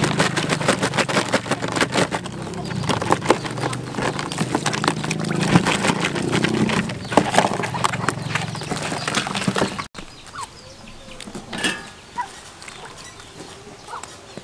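Water pouring and glugging from a plastic jug into a plastic basin of grasshoppers, splashing steadily for about ten seconds. It cuts off abruptly, leaving quieter outdoor background with a few faint chirps.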